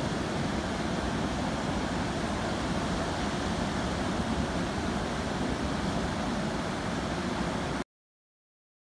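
Ocean surf breaking on a beach, a steady rushing wash with wind on the microphone. It cuts off abruptly about eight seconds in.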